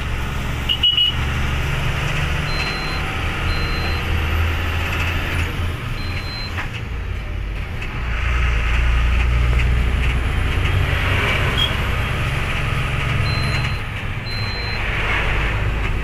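Sand-laden truck's diesel engine droning steadily with road noise, heard from inside the cab, growing louder about halfway through. A few short high beeps sound twice.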